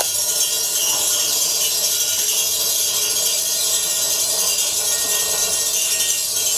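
Orbeez water beads skittering on a very hot steel plate, a steady high sizzling hiss as they jump on their own steam: the Leidenfrost effect.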